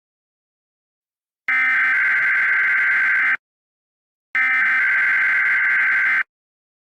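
Emergency Alert System SAME header: two bursts of digital data tones, each about two seconds long, the first starting about a second and a half in, with a short gap between them. They are the coded header that opens a NOAA Weather Radio tone alert test.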